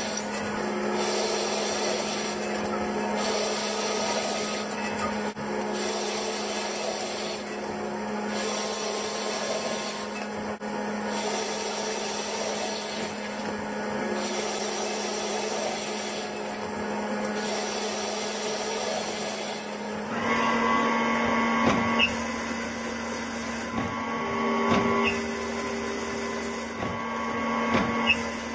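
CNC lathe machining aluminium: a steady machine hum under dense cutting noise. The sound changes character about twenty seconds in.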